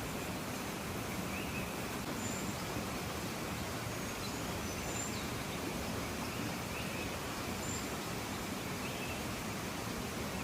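Steady rushing of a river, with a few faint, short high bird chirps scattered over it.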